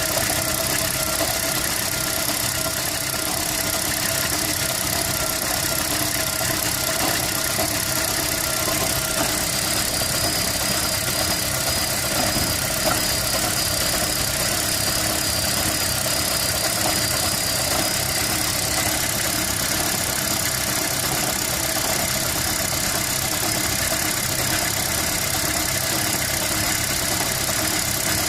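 A 2011 Toyota Prius's 1.8-litre four-cylinder petrol engine running steadily at idle, recorded to show a misfire.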